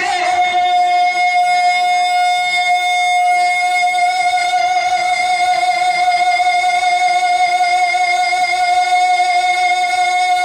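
Male naat singer holding one long sung note for about ten seconds, with a slight waver in pitch.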